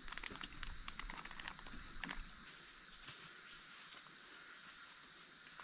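Rainforest insects droning high and steady. About two and a half seconds in, a louder insect buzz starts up, pulsing about four times a second. Light clicks sound in the first half.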